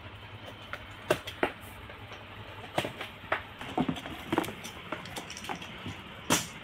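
Cardboard box being unpacked by hand: flaps pulled open and cardboard handled, with a handful of scattered sharp clicks and knocks.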